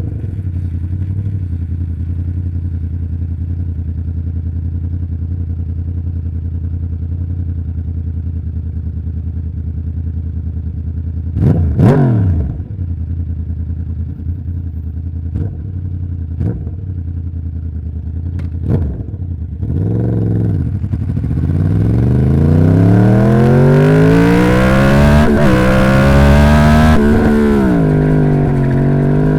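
2011 Yamaha YZF-R1's crossplane inline-four on its stock exhaust, idling steadily. A sharp throttle blip comes about twelve seconds in and a few short ones follow. Then a slower rev climbs for several seconds, holds, and drops back to idle near the end.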